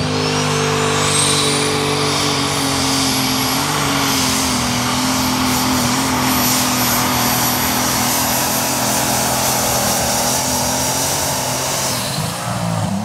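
Super Stock class turbocharged pulling tractor running flat out on a pull, its engine loud and steady. A high turbo whistle climbs over the first second and then holds. The engine backs off near the end.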